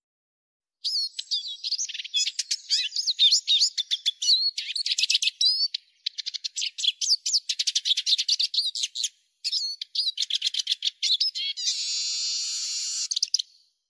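Eurasian siskin singing: a fast, twittering run of chirps, trills and quick whistled slurs starts about a second in and ends with a drawn-out buzzy wheeze.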